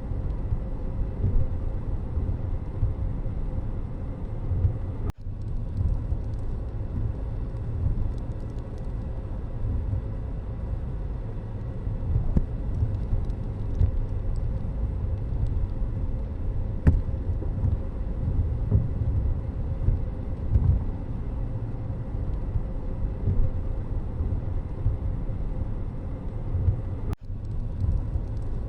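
Road vehicle noise: a steady, low rumble of traffic and motor vehicles. It cuts out for an instant twice, about five seconds in and near the end.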